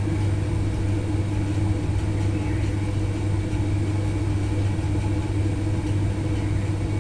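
Steady low background hum, constant in level, with a fainter high tone above it.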